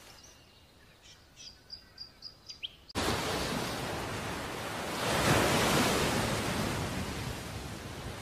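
A few faint, short high chirps, then about three seconds in a sudden rushing noise of water that swells and slowly fades: an anime sound effect.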